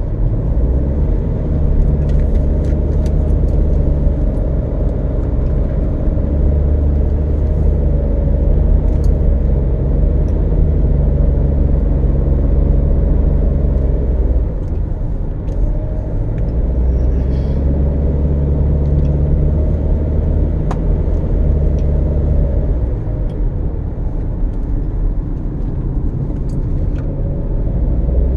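A car driving, with a steady low engine and road rumble whose engine note shifts slightly now and then.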